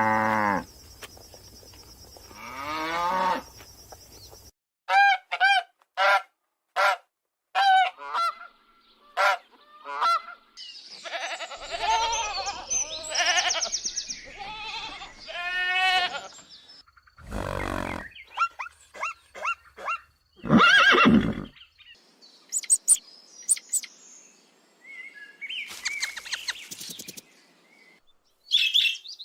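A run of farm animal calls one after another. A long low call opens it, then a string of short sharp calls about half a second apart, more calls in the middle, and thin high chirps near the end.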